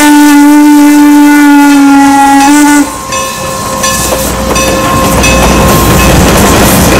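Norfolk and Western 475 steam locomotive's whistle blowing one long, loud, steady blast close by, cutting off about three seconds in. The passenger coaches then roll past with a steady rumble of wheels on rail.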